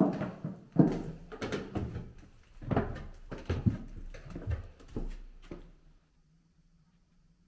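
Footsteps on bare wooden floorboards, a knock about every half to three-quarters of a second, with the boards creaking; they stop about six seconds in.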